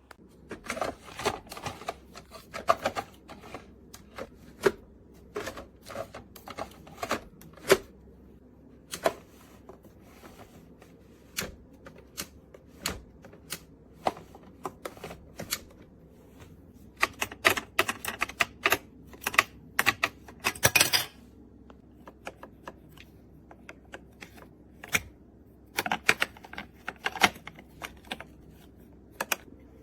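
A long series of irregular sharp clicks, taps and knocks from hard objects being handled, coming in flurries with short gaps between them.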